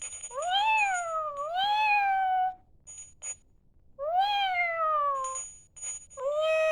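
Electronic Pets Alive Smitten Kittens toy kitten playing recorded meows through its small speaker: four meows, each rising then falling in pitch, with a faint high tinkling tone in the pauses between them.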